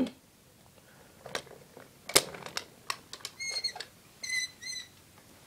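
Scattered clicks and light knocks, as toy tractor models are handled and set down, followed by two short, high-pitched squeaks about a second apart.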